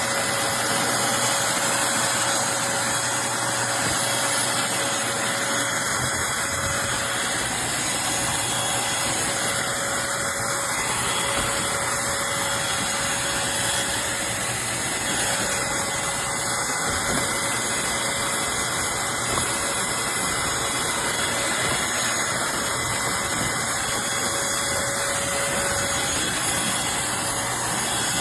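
Eureka NES215A Blaze stick vacuum running steadily with a high motor whine, pushed over a high-pile area rug.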